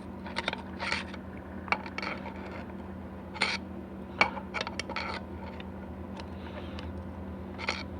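Scattered light clicks and scrapes of metal parts being handled and shifted: the 4L80E transmission pump and its gasket being worked in the case to bring the gasket's holes in line with the bolt holes. A steady low hum runs underneath.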